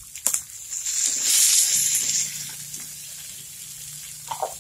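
Chopped tomato tipped into a hot frying pan of calabresa sausage, onion and pepper frying in the sausage's own fat, setting off a loud burst of sizzling about a second in that settles to a steady quieter sizzle. A few knocks of the bowl and a silicone spatula against the pan at the start and near the end.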